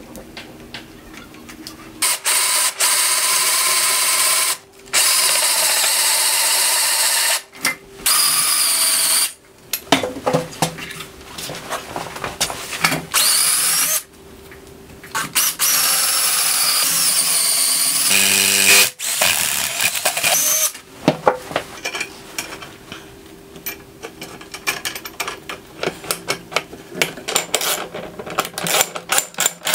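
Power drill boring an extra-long bit through a 6x6 hemlock timber in several loud runs, broken by short pauses, its pitch wavering under load. Later a socket ratchet clicks rapidly as a nut is tightened on threaded rod, the clicks coming faster toward the end.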